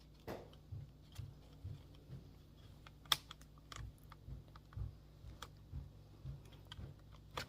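Small plastic clicks and soft knocks as a computer's casing is pried open with a guitar pick, with one sharper snap about three seconds in.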